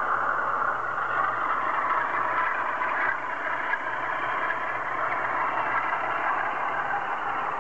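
OO gauge model Class 47 locomotive hauling a train of model oil tank wagons, with a steady running noise from the model and its wagons rolling along the track.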